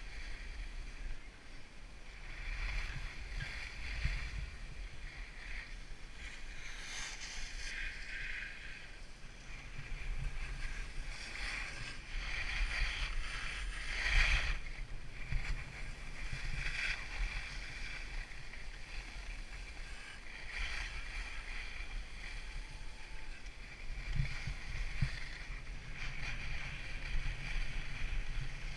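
Skis hissing and scraping over packed snow, swelling and fading with each turn, over a low wind rumble on the microphone.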